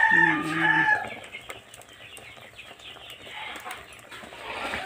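A rooster crowing, the crow ending about a second in; after that only faint background sound.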